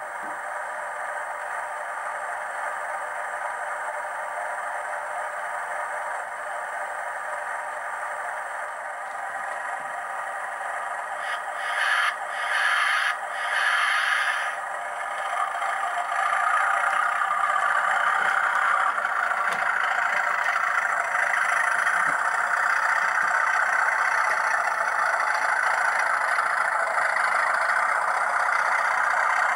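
Model locomotive's sound decoder playing a Class 37 diesel engine through its small onboard speaker, running steadily. There are a few short, louder bursts about twelve to fourteen seconds in, and after that the engine note steps up and stays louder.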